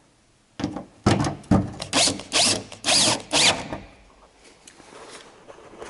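Bosch cordless drill/driver driving a screw into the aluminum winterization plate on a Piper Cherokee's lower cowling, in about six or seven short trigger pulses over some three seconds, the motor whine rising and falling with each pulse.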